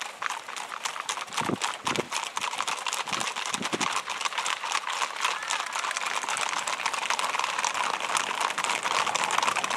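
Hooves of a herd of Icelandic horses clattering on an asphalt road: a dense, irregular run of rapid clip-clops from many horses at once.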